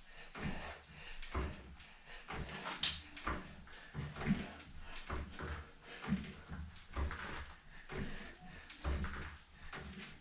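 Swim pull cords anchored over a door being pulled in quick, alternating freestyle strokes: irregular knocks and rattles, about one or two a second, from the door anchor and cords with each pull.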